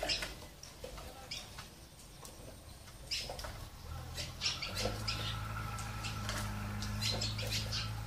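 Sparrows and other small birds chirping at a feeder, with many short, high chirps that get busier partway through. A low, steady hum comes in about halfway through.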